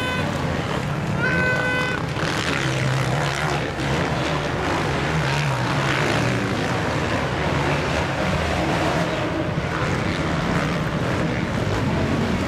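MX1 motocross bikes' engines running and revving around the dirt track, a continuous racing drone. A short steady horn-like tone sounds about a second in.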